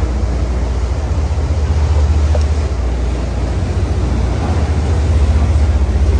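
Steady low rumble of a sportfishing boat running under way, with a haze of wind and rushing water over it.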